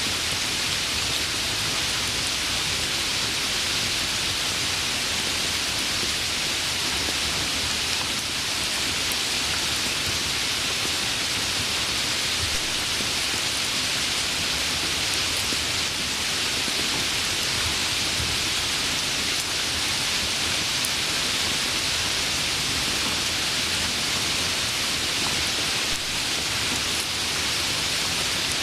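Steady rain falling, an even hiss of drops with no distinct pattern and no breaks.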